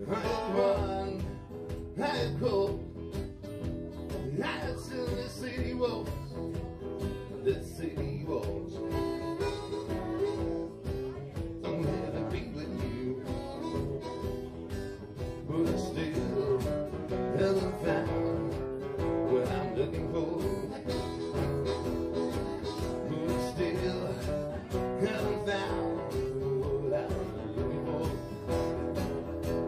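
Guitar-led live blues music: plucked guitar notes and chords over a steady band accompaniment, a slow bluesy arrangement of a rock song.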